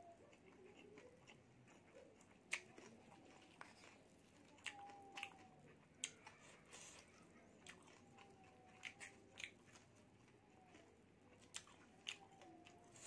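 Faint chewing and mouth sounds of someone eating noodle soup, with scattered sharp clicks as a wooden spoon knocks and scrapes against a stone mortar bowl.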